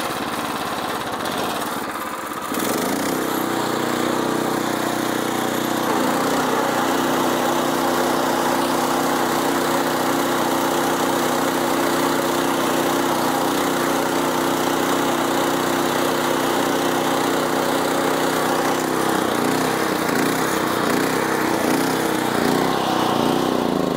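Small gasoline engine of a walk-behind reaper-windrower running under load as it cuts and windrows tall mombaça grass. The engine picks up speed about two seconds in, holds a steady note, and wavers near the end.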